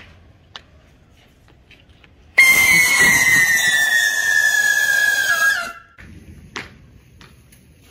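Diwali sky rocket taped to a toy drone firing. About two and a half seconds in it bursts into a loud, hissing whistle that slides slowly down in pitch for about three seconds, then cuts off. The rocket burns while stuck fast to the toy instead of flying off.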